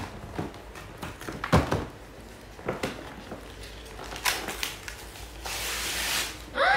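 Paper gift bags and gift-wrap paper rustling and crinkling as they are handled and pulled open, with scattered light knocks, a thump about one and a half seconds in, and a longer stretch of rustling near the end.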